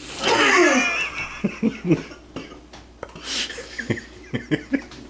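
A woman's strained, drawn-out groan of disgust at an unpleasant taste, followed by short breathy bursts of voice. Near the end come a few gulps of water from a plastic bottle.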